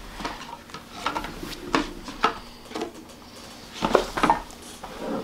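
Small objects being handled: a scatter of light clicks and knocks, with a louder cluster about four seconds in.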